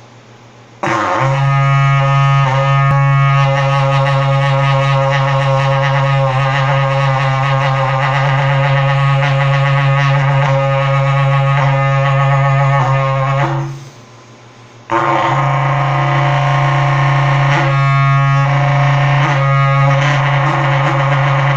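Berrante, the Brazilian cattle-herding horn, blown in one long, steady, low droning note of about twelve seconds with a few changes in tone. It breaks off, and after a pause of about a second and a half a second long note begins and carries on.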